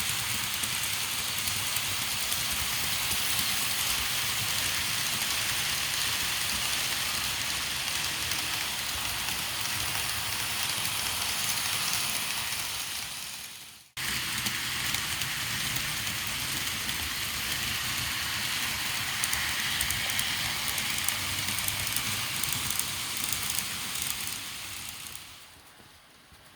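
Recorded sound of a train running on rails, a steady rushing noise. It fades out about halfway, breaks off suddenly, starts again at full level, then fades away near the end.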